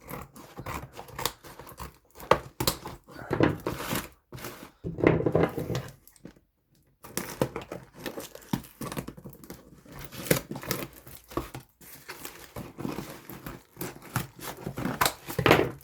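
Parcel packaging being crumpled and torn open by hand, with irregular rustling and scattered clicks and knocks.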